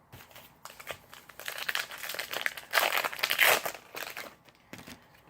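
Plastic wrapper of a baseball card pack being torn open and crumpled, a dense crinkling that is loudest about three seconds in, followed by a short tick near the end.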